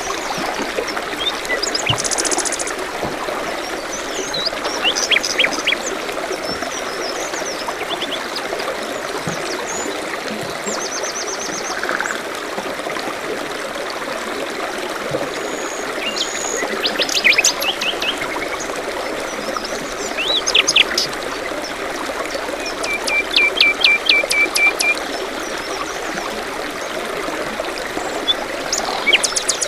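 Running water of a forest stream, with several small songbirds chirping and trilling over it; one gives a rapid run of even notes about three quarters of the way through.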